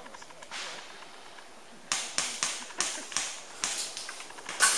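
Airsoft guns firing a string of about eight sharp single shots at an uneven pace, starting about two seconds in, with the loudest shot near the end.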